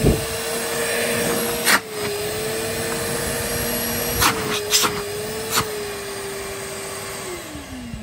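Numatic George wet-and-dry vacuum's 1200 W motor running with a steady whine, which the owner says sounds fine even though he believes the motor is full of dust and its suction is weak. The pitch dips briefly twice, a few handling knocks sound, and near the end the note falls away as the motor winds down.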